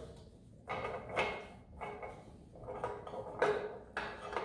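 Pinion gear being worked out of a Volvo Penta DPS sterndrive lower-unit gear case: metal parts scraping and rattling against the housing in three short bursts about a second apart.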